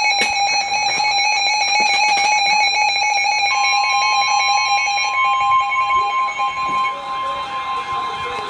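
Weather radio alert alarms for a severe thunderstorm warning: a rapidly pulsing electronic alarm beep, joined about 3.5 s in by a steady single-pitch warning tone. The pulsing alarm stops about 7 s in while the steady tone carries on.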